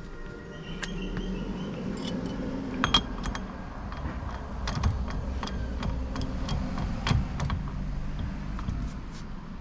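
Scattered small metal clicks and clinks as tools and steering-hub parts are handled and the hub nut is fitted.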